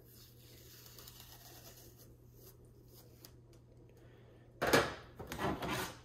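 Adhesive serial-number sticker being scratched at and peeled off the plastic body of an espresso machine: faint rubbing and scratching, then a louder rasping scrape about four and a half seconds in that lasts over a second.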